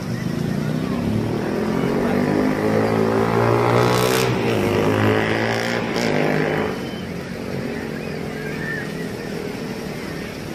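A motor engine passing by, growing louder over a few seconds and then fading out about two-thirds of the way through.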